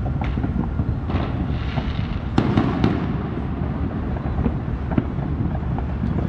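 Fireworks going off: scattered sharp bangs and cracks, with a quick cluster of them about two and a half seconds in, over a steady low rumble.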